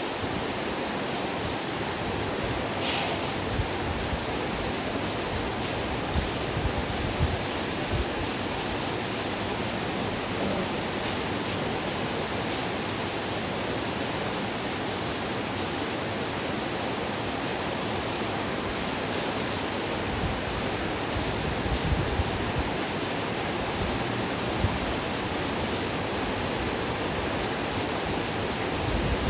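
Heavy rain falling steadily, an even hiss with scattered low thuds of drops striking nearby surfaces.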